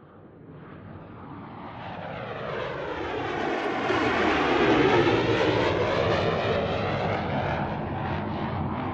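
Hawker Hurricane's Rolls-Royce Merlin V12 piston engine on a flyby. The propeller drone fades in from silence, is loudest about five seconds in, and eases a little as the plane passes, its tone sweeping as it goes by.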